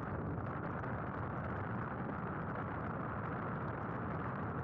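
Steady, muffled rushing noise like wind buffeting a small camera's microphone, with no clear motor whine.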